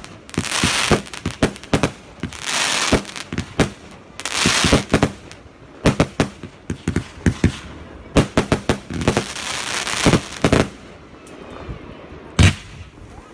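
Fireworks display firing: a rapid, irregular series of sharp bangs from launches and aerial bursts, with several longer hissing rushes lasting about a second each. The firing thins out after about eleven seconds, and one last loud bang comes near the end.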